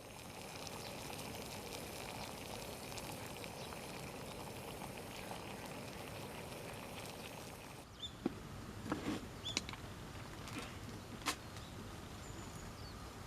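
Outdoor ambience: a steady hiss with scattered sharp clicks and crackles. After a cut about eight seconds in, several louder clicks and a few short high chirps.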